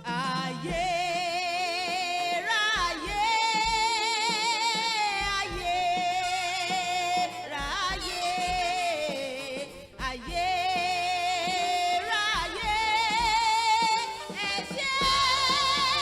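A solo voice singing long, held notes with heavy vibrato in slow phrases, over a steady low beat.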